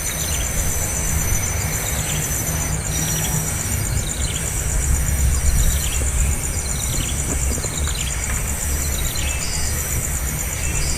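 Thin, falling bird chirps repeating about once a second over a steady, fast-pulsing insect drone, with a low rumble underneath.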